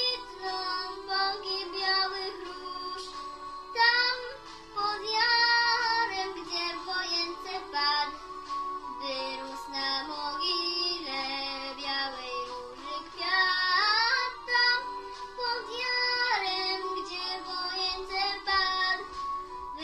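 A young girl singing a Polish patriotic song solo, in phrases, over a musical accompaniment that holds steady notes between her lines.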